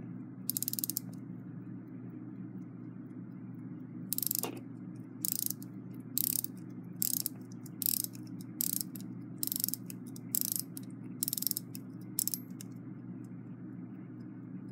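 Westclox Big Ben Chime Alarm mainspring being wound with a key: short bursts of ratchet-and-click clicking, about one a second, one burst per turn of the key. A steady low hum runs underneath.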